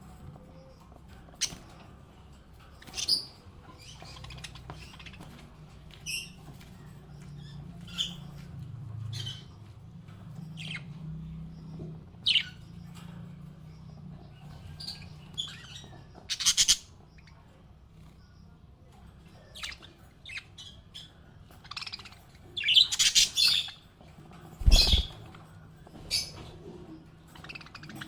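Small pet parrots chirping and squawking in short, scattered calls, with denser bursts of chatter near the end. A single thump sounds late on, and a low steady hum lies under the first half.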